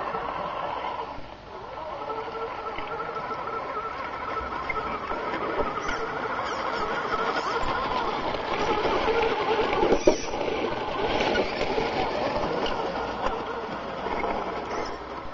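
Tamiya Scania R620 radio-controlled model truck driving over loose gravel, its small motor and gears running with the tyres on stones. It is loudest as it passes close about ten seconds in, where there is one sharp knock.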